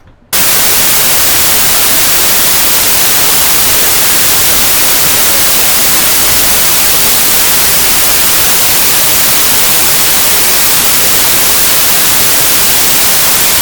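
Loud, steady white-noise static hissing evenly across all pitches, cutting in abruptly just after the start and holding at one level without change.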